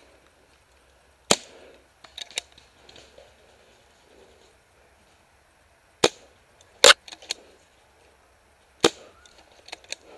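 CCI Phantom pump-action paintball marker firing single shots: about four sharp cracks a few seconds apart, with fainter pops and clicks between them.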